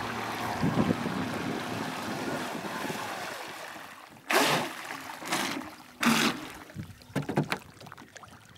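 Twin-motor RC racing catamaran (two TP Power 4050 brushless motors on 52 mm three-blade props) running across the water with a steady rushing hiss that fades away over the first few seconds as it slows. After that come three short, loud bursts about four, five and six seconds in, with a few smaller ones after.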